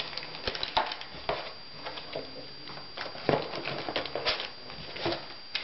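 Hands rummaging in a cardboard box and handling plastic-bagged electronic parts: irregular rustling and crinkling with scattered light knocks.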